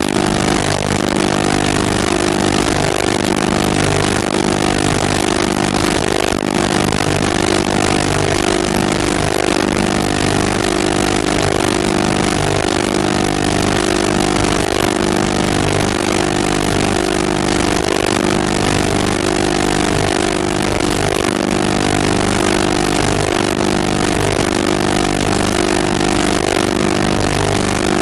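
A loud, steady mechanical drone that holds one unchanging pitch and level throughout, like an engine or generator running at constant speed.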